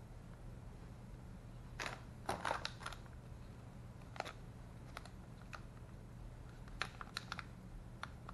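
Clear plastic bags of electronic parts crinkling and clicking as they are handled, in scattered short bursts, busiest about two seconds in and again around seven seconds, over a low steady hum.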